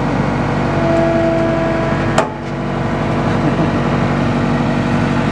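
Bobcat skid-steer loader's engine running steadily close by. A higher whine comes in for about a second near the start, and a sharp knock sounds about two seconds in.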